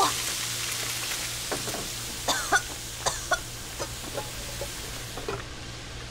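Hot wok sizzling as water goes in, the hiss loudest at the start and slowly dying down. A few short sharp sounds come about halfway through.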